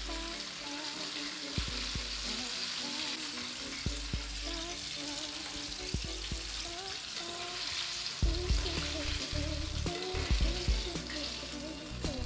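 Flour-coated chicken pieces deep-frying in a kadhai of hot oil, sizzling steadily as they near done. Metal ladle scrapes and knocks against the pan are scattered throughout and grow louder and more frequent from about eight seconds in, as the pieces are stirred and lifted out.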